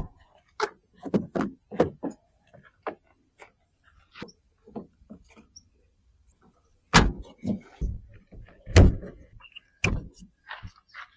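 Scattered clicks and knocks of hands working on a van's door panel and its plastic trim pieces, with two louder thuds about seven and nine seconds in.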